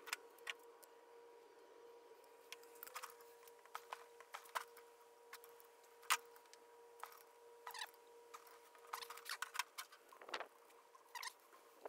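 Scattered clinks and taps of hand tools and small metal engine parts being handled on a workbench, the sharpest one about six seconds in, over a faint steady hum.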